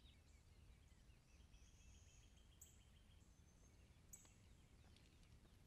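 Near silence: faint outdoor ambience with a low rumble, and distant birds giving short high chirps every second or two and a thin trill.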